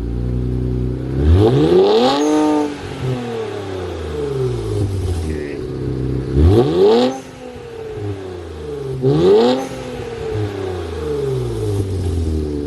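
Infiniti Q50's twin-turbo V6 with AMS downpipes and an MBRP exhaust, idling and revved three times, each rev climbing quickly and then falling back to idle.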